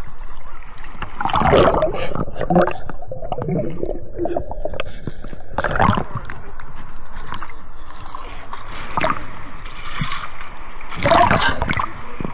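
Water sloshing and gurgling, with louder surges about 2, 6 and 11 seconds in.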